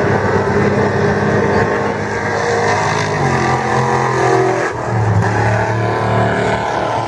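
Trophy Truck Spec off-road race trucks' engines running and revving, a steady low engine drone with a change in pitch about two thirds of the way through.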